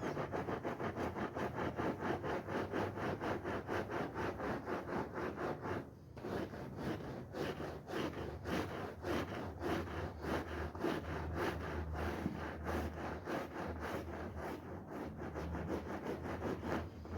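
Brush scrubbing a soapy, foamy wool rug in quick back-and-forth strokes, about three or four a second, with a short pause about six seconds in.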